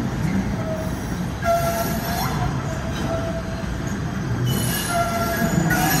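PATH rapid-transit train of PA5 cars rolling slowly through the station, wheels rumbling on the rails, with short high squeals from the wheels coming and going several times, loudest near the end.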